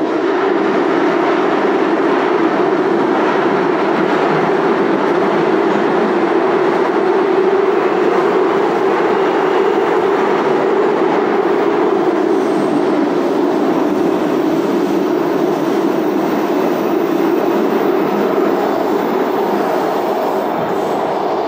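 Interior ride noise of a Baltimore Metro SubwayLink railcar running along the track: a steady rumble of wheels on rail, a little quieter near the end.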